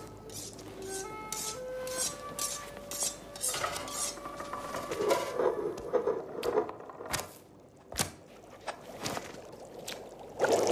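Light clinks and taps of kitchen dishes and utensils in a cartoon kitchen, irregular, with two sharper knocks about seven and eight seconds in. Soft music with a few held notes plays under the first few seconds.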